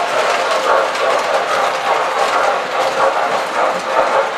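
MTH standard gauge tinplate toy train running on three-rail metal track across a steel truss bridge, with a steady rattling clatter of wheels on rail.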